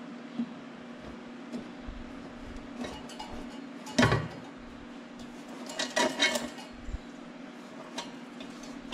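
Air-intake pipe being worked off a tractor's turbocharger inlet: one loud knock about four seconds in as it comes free, then a few clusters of metallic clinks and rattles as it is handled, over a steady low hum.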